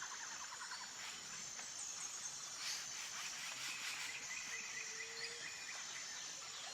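Faint nature ambience of insects: a steady high-pitched buzz throughout, with a pulsed trill fading out at the start and another rapid trill from about three to five seconds in.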